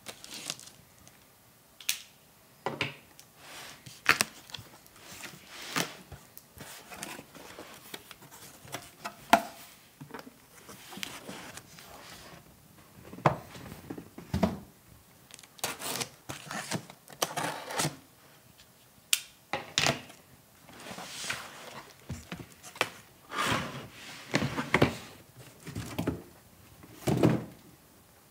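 Cardboard box being unpacked: packing tape slit and torn, cardboard flaps and packing rustling, with scattered knocks and thuds as a hard plastic case is handled and set down on a wooden tabletop.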